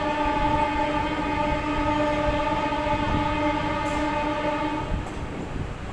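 Train horn sounding one long, steady multi-note blast that cuts off about five seconds in, over the running rumble of the moving train.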